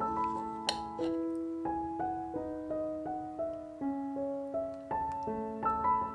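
Background piano music: a gentle melody of single notes over a simple accompaniment, notes struck about every half second.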